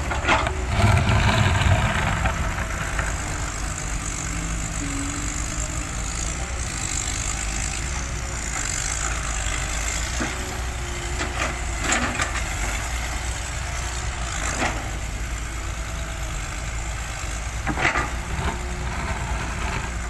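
Caterpillar hydraulic excavator's diesel engine running steadily while it digs sand, rising under load for a second or two near the start, with a few sharp clunks from the bucket and boom.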